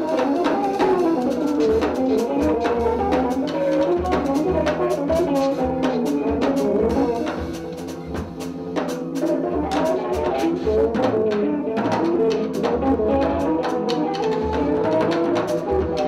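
Improvised jazz trio playing live: busy, shifting melodic lines in the middle register over pulsing bass notes, with drums and cymbals striking often. The music eases a little just before the middle, then builds back.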